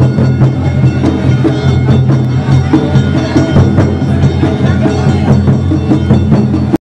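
Awa-odori festival music: drums and other percussion struck over sustained instruments, loud and dense, cutting off abruptly at the very end.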